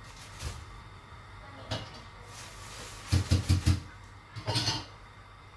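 Off-camera kitchen knocks and clatter. A single knock comes about half a second in and another just before two seconds. A quick run of four or five heavy thumps, the loudest sounds, follows around three seconds in, then a short clatter about a second later.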